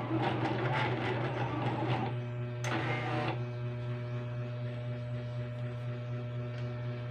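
Silhouette Cameo cutter plotter running as it cuts a vinyl sticker: its motors whir busily for the first two seconds, then a short louder whir comes about three seconds in. After that it settles into a quieter steady hum as the vinyl sheet is fed out the front.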